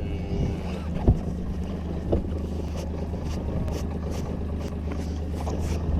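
Kawasaki Mule Pro FXT side-by-side's engine running steadily at low revs, with a couple of short knocks about one and two seconds in.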